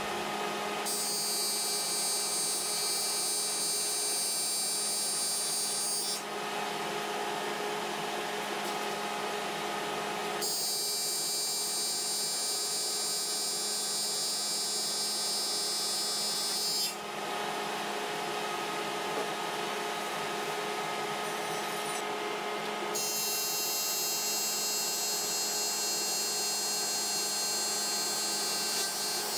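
Aluminum being TIG welded: three welds of about five to six seconds each, each a steady high buzz while the arc burns. The welding machine's steady hum runs in the pauses between.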